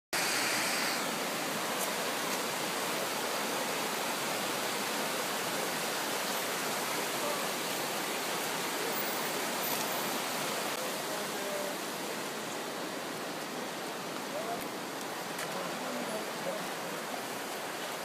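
Fast mountain stream rushing over rocks: a steady, even roar of running water that eases slightly about two-thirds of the way through.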